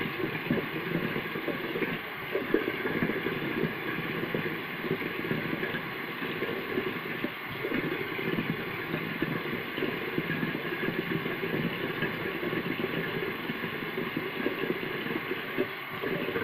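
Water running steadily from a bathroom sink tap, with an uneven splashing texture.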